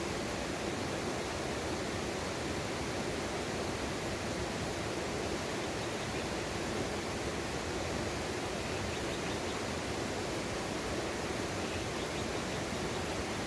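Mountain stream rushing steadily over rocks, an even, unbroken water noise.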